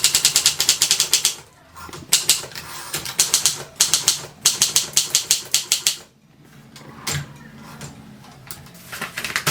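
Triumph Durabel manual typewriter being typed on: fast runs of key strikes, about eight to ten a second, in several bursts. About six seconds in the typing stops, and only a few scattered clicks and a single dull thud follow.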